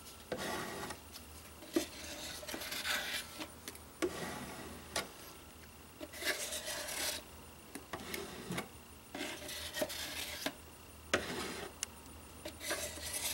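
Wooden stir stick scraping two-part expanding foam out of a mixing cup in irregular strokes, with a few light knocks of stick against cup.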